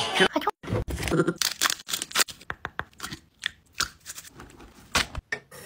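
Slime being squeezed and pulled between the hands, making an irregular run of sticky clicks and pops.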